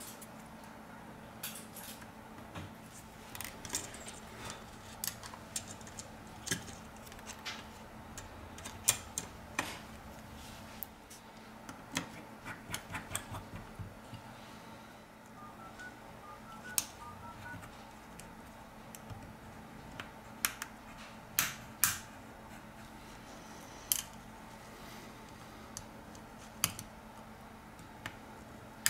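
Irregular small, sharp clicks and taps of tweezers and fingertips on the parts of a Xiaomi Redmi 7 phone being reassembled, as flex cables and components are pressed into place, over a faint steady hum.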